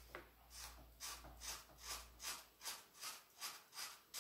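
Colouring pen scratching across a cardboard toilet roll tube in quick back-and-forth zigzag strokes, about three a second.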